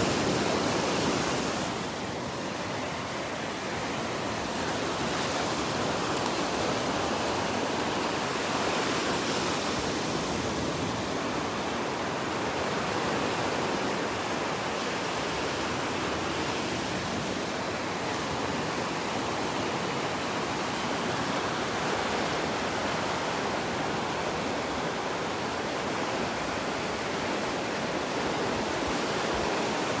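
Gulf of Mexico surf washing onto the beach: a steady hiss of breaking waves that swells and eases gently.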